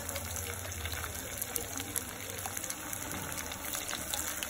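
Punugulu (fritters of Maggi noodles in gram-flour batter) frying in well-heated oil in a kadai: a steady sizzle with fine crackling.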